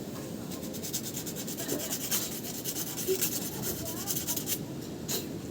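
A quick run of rapid scraping strokes, lasting about four seconds, with one or two separate scrapes near the end.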